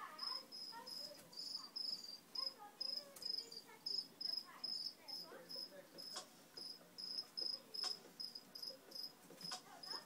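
A cricket chirping steadily, a short high chirp about two to three times a second, with a few sharp clicks in the second half.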